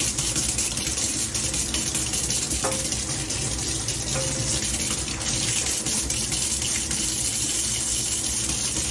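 A steady rushing noise, like running water, holding at an even level throughout.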